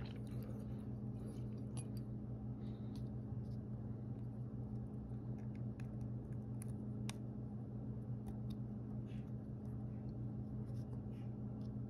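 Scattered faint clicks and taps of a plastic and metal extended magazine release being handled and fitted onto a Savage 64 rifle magazine, over a steady low hum.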